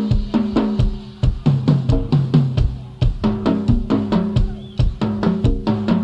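Live rock-fusion band recording: a drum kit playing a busy, driving groove of kick and snare over low pitched notes that shift to a lower pitch partway through.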